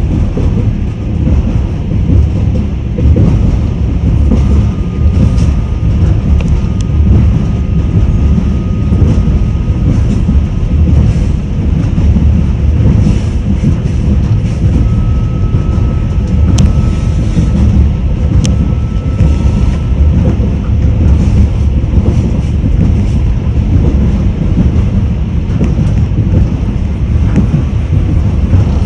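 Passenger train running on the rails, a steady low rumble with the clatter of its wheels on the track.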